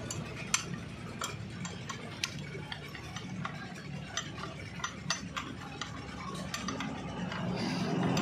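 Irregular metallic clicks and clinks of wrenches and steel gear teeth on a Shaktiman rotavator's side gearbox as the castle nut on a gear shaft is tightened with the gear held by a pipe wrench. The sharpest click comes about half a second in, over a faint low hum.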